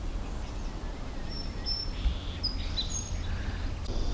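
Outdoor background noise: a steady low rumble with several short, high bird chirps, mostly about midway.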